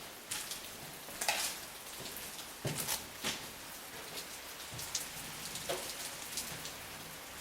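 Rain falling in a thunderstorm, a steady patter with scattered sharper ticks and knocks, the loudest about a second in and near three seconds in.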